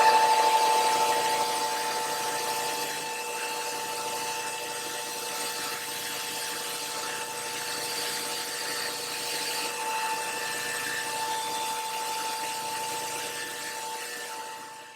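A power tool's motor running steadily with a constant whine over a hiss. It is louder for the first couple of seconds and stops abruptly at the end.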